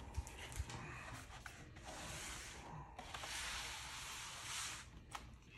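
Paper inner sleeve sliding against a cardboard LP jacket: two long papery slides, the first about two seconds in and the second just after three seconds, running nearly two seconds. A few light taps of handling come near the start and one near the end.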